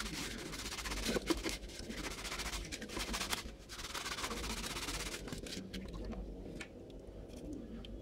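Stiff-bristled brush scrubbing a wet plastic vacuum-cleaner part over a bowl of water, with water splashing. The scrubbing is busy for about five seconds, then thins out to fainter handling sounds.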